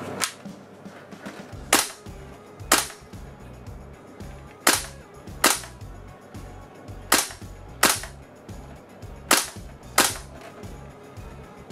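WE L85A2 gas blowback airsoft rifle firing single shots on semi-auto: about nine sharp shots, several in quick pairs.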